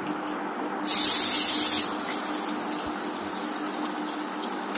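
Fish pieces frying in hot oil in a kadhai: a steady sizzle, with a louder, high hiss starting abruptly about a second in and lasting about a second.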